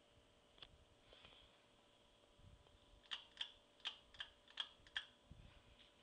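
Ceiling fan running, very faint, with a low steady hum. About three seconds in comes a quick run of about seven sharp clicks, some three a second.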